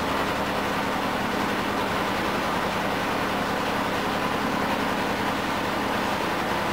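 Boat engine running steadily: a constant drone with a low, even hum and no change in pitch or level.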